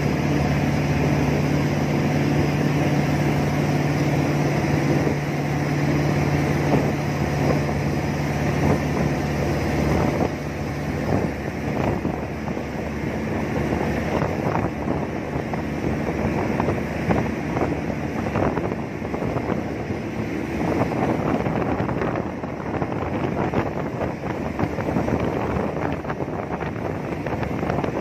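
Jet boat engine running with a steady hum, under wind buffeting the microphone and rushing water. The engine's steady note fades away about a third of the way through, leaving mostly wind and water noise.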